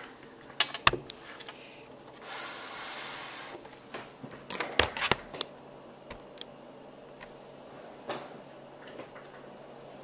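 Handling noise from a camera being moved and set up: a few sharp knocks and clicks in two clusters, about a second in and again around five seconds, with a short rustle between them.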